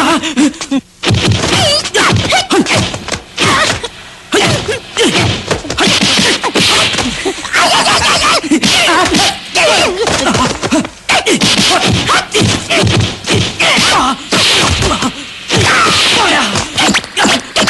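Kung fu film fight sound effects: a quick run of punch and kick whacks with whooshing swings of fists and legs, one blow after another.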